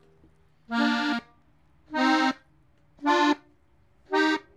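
Gabbanelli button accordion in F playing four short, separate notes about a second apart. This is the ornament (adorno) for the third voice, played slowly note by note.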